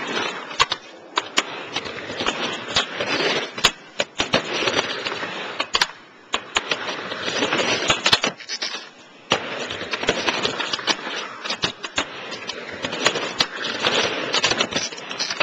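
Skateboard wheels rolling on a plywood mini ramp, the rumble swelling and fading every couple of seconds as riders go back and forth. Frequent sharp clacks of boards striking the ramp break in.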